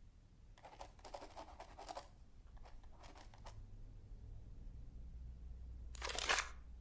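Pen scratching on paper in two short spells of writing. Near the end comes a louder single rustle of a book page being turned.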